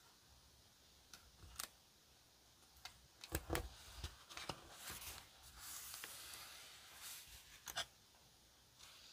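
Paper being handled and pressed onto a journal page: a few soft taps and crinkles, the loudest about three and a half seconds in, then a soft brushing rustle as a hand smooths the paper flat.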